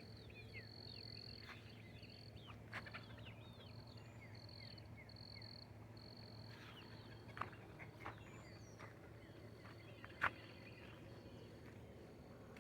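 Faint backyard ambience: an insect keeps up a steady high-pitched trill that breaks off now and then, while birds give many short, soft chirps. A few sharp ticks sound near the middle and later on.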